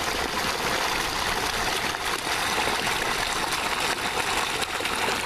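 Water steadily churning and splashing in a shallow turtle tank, a constant rushing hiss without pauses.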